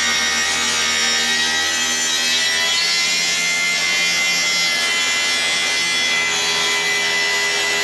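Makita track saw cutting along its guide rail through a sheet of plywood, the motor running steadily under load with a high whine over the rasp of the blade in the wood.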